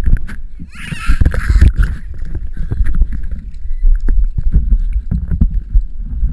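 Pool water splashing and sloshing against a waterproof action camera held at the water's surface, with low rumbling and knocks from the housing being handled. A louder splash comes about a second in.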